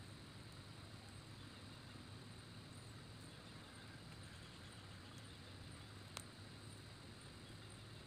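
Near silence: faint steady outdoor background hiss with a low hum, broken by a single sharp click about six seconds in.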